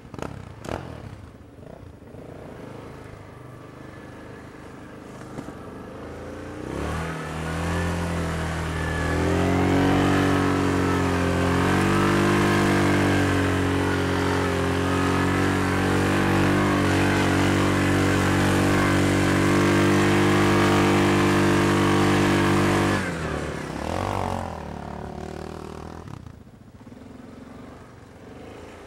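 Yamaha Grizzly ATV's single-cylinder four-stroke engine running low, then revving up about seven seconds in. It holds high revs under load for about fifteen seconds while the quad climbs a soft sand slope. Near the end the throttle drops off suddenly, with one short blip before it settles back to a low run.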